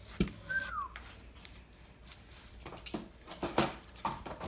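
Handling of a cardboard shipping box and the plastic wrapping inside it: a few short knocks, scrapes and rustles, clustered about three to four seconds in. Near the start there is one short high squeak that falls in pitch.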